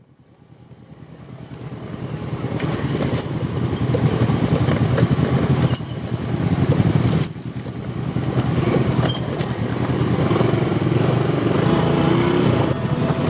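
Motorcycle engine running hard on an off-road ride, fading in at the start, with two short dips in level midway.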